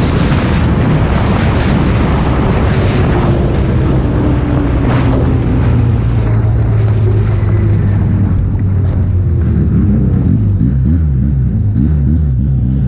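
Arctic Cat snowmobile engine running hard at speed with wind buffeting the microphone, other sleds running close by; near the end the engine note drops and turns uneven as the throttle eases off.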